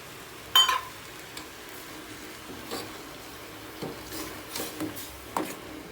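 A metal utensil strikes a cooking pot with one sharp, ringing clink about half a second in, followed by softer knocks and scraping as the pot is stirred.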